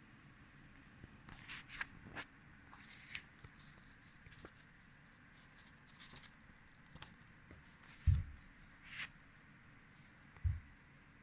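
Faint, irregular rustling and clicking of something being handled, with two short low thumps, about eight and ten and a half seconds in.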